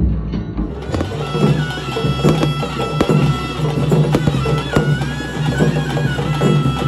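Traditional Tulu ritual music for a Bhoota Kola: a reed pipe playing a held, wavering melody with slides in pitch over a steady low drone, with regular drum strikes.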